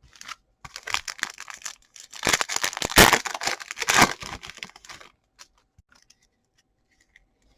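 A trading card pack wrapper being torn open and crinkled by hand. The crackling builds, is loudest in the middle and dies away after about five seconds, leaving a few light clicks.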